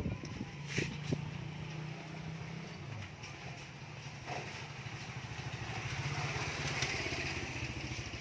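A small vehicle engine, most like a motorcycle's, running steadily at low revs with an even pulsing hum. A hiss swells over it about five to seven seconds in.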